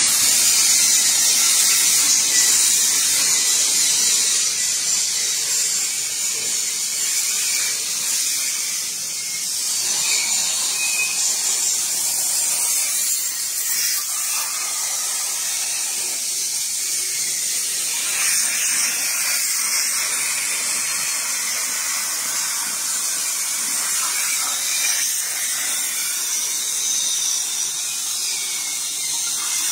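CNC plasma torch cutting sheet metal: a steady, high-pitched hiss of the plasma arc and its gas jet.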